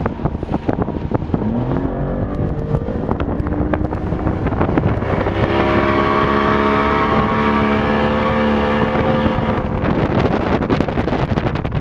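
Motorboat engine rising in pitch as it speeds up, then running at a steady pitch for several seconds before fading away. Wind buffets the microphone throughout.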